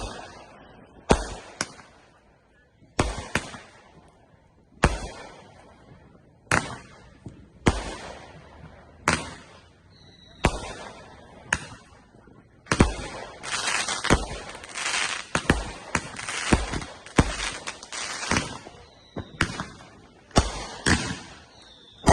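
Brothers "Pipe Dream" 200 g, 24-shot firework cake firing: sharp bangs one after another, about one to two seconds apart, each with a short rumbling tail. Around the middle the shots come thick and fast with crackling, then slow to single bangs again near the end.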